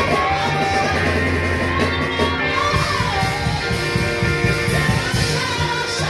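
Gospel praise team singing over music accompaniment, with the low accompaniment turning into a pulsing beat about halfway through.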